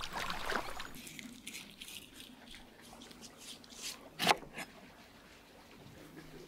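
Kitchen knife cutting through a lemon onto a wooden board: soft squishing cuts with one sharp knock of the blade on the board about four seconds in.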